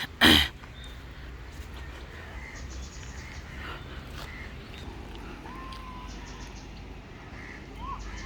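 Outdoor background with faint, scattered bird calls, including a couple of short whistled notes in the second half. A brief loud burst of noise comes just after the start.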